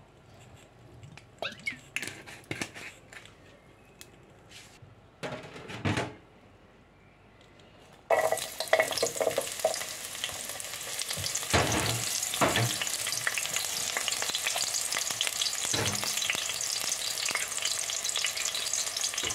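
Sliced red onion dropped into hot oil in a steel pot. A loud, steady sizzle starts suddenly about eight seconds in, with a few knocks of the utensil pushing the onion off the plate. Before that there are only faint handling knocks as the oil goes in.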